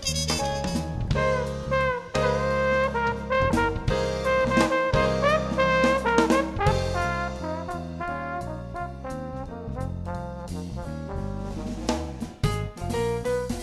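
Instrumental background music: a brass melody over a drum kit, in a jazzy style.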